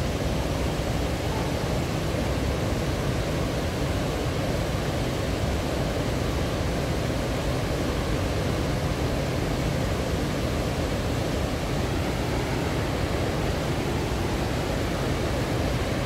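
Steady rush of river water pouring over a wide stepped weir.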